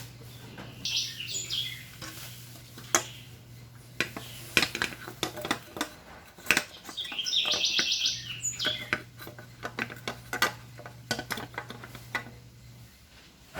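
Hand tools and metal engine parts clinking and knocking on a workbench during an engine rebuild, with two short runs of rapid, even clicking. A steady low hum runs underneath, dropping out in the middle and stopping near the end.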